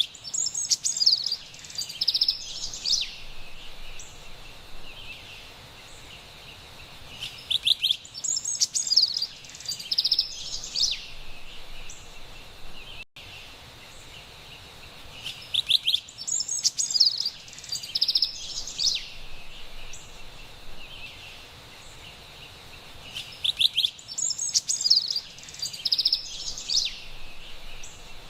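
Carolina wren singing: the same bright burst of song comes four times, about every eight seconds, over a steady soft background hiss.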